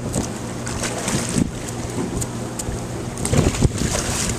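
Water splashing at the surface as tarpon strike at thrown shrimp, with several short splashes, the largest about three and a half seconds in. Wind buffets the microphone over a steady low hum.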